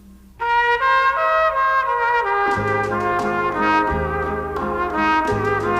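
Background music starting about half a second in with a pitched melody, a bass line and beat coming in about two and a half seconds in.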